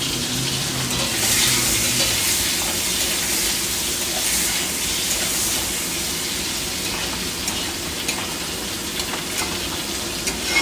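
Oil sizzling steadily as chopped capsicum and boiled eggs fry in two pans on a gas hob, with a few short clicks and scrapes from a metal spatula stirring them, the sharpest at the very end.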